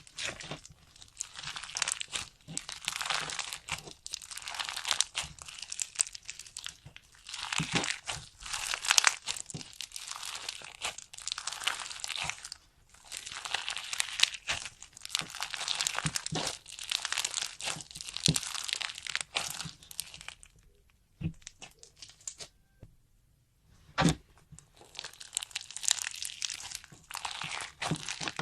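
Slime being squished and stretched by hand, giving dense crackling and popping in bouts of a few seconds. Near the end there is a short lull broken by a few sharp clicks, one louder than the rest, before the crackling starts again.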